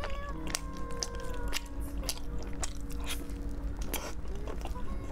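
Close-miked ASMR eating: a person chewing crunchy food, with sharp crisp crunches about twice a second over faint held steady tones.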